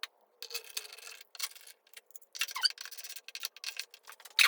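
Irregular scraping and rubbing of a motorcycle part being worked back and forth by hand to seat it under a lip, with a few short squeaks. The loudest scrape comes near the end.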